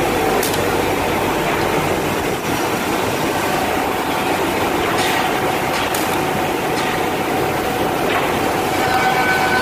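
Woodmaster two-table oscillating oval mortising machine running, a steady mechanical noise with a whine that weakens for most of the middle and comes back strongly near the end. A few sharp clicks are heard over it.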